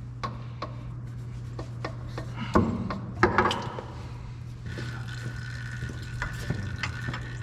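A metal pipe on a tractor transfer case being wiggled and twisted out of its O-ring fitting: scattered clinks, knocks and scraping, loudest about two and a half to three and a half seconds in. A steady low hum runs underneath, and a faint steady high tone comes in about two-thirds of the way through.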